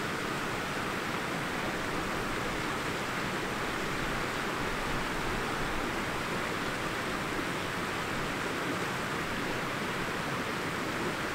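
Steady wind and rain noise outdoors: an even hiss with a little low rumble, unchanging throughout.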